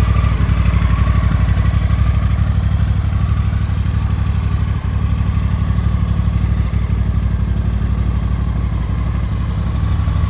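Honda NT1100's 1,084 cc parallel-twin engine idling steadily, with an even, low pulsing beat.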